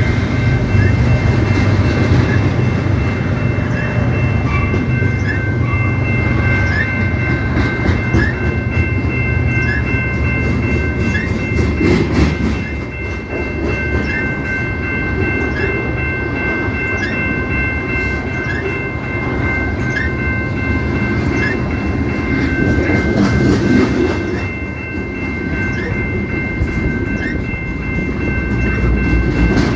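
CP Rail train rolling past with a steady low rumble and the clickety-clack of wheels over the rails. Steady high-pitched ringing tones and short chirps about once a second run over it throughout.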